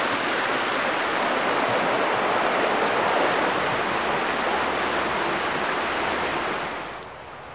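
Doused campfire embers hissing with escaping steam as water is poured over them, a steady hiss that fades away near the end.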